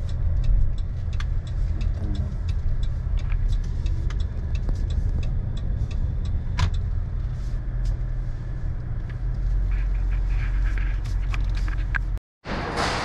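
A car driving, heard as a steady low road and engine rumble with scattered faint ticks. It breaks off suddenly near the end.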